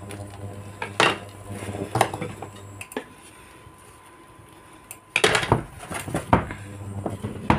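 A wooden spatula knocking and scraping against a non-stick frying pan as a filled tortilla is pushed and tucked in: single clicks about a second apart, then a quick cluster of knocks and scrapes about five seconds in. A low hum sounds underneath, dropping out for a couple of seconds in the middle.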